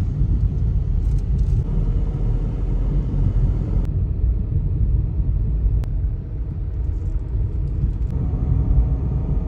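Steady low rumble of a car being driven, heard from inside the cabin: engine and tyre noise on a rough paved road, with two faint ticks in the middle.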